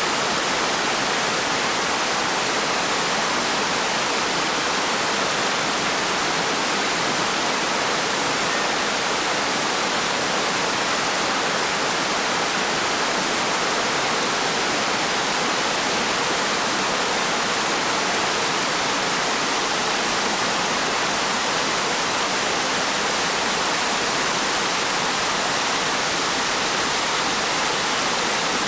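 Water cascading over rocks in a small waterfall and rocky stream: a steady, unbroken rush.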